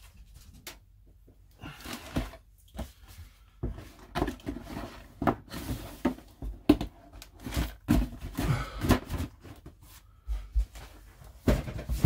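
A plastic model kit's cardboard box and bagged parts being handled on a workbench: irregular rustling with knocks and thuds as the box is lifted and set down.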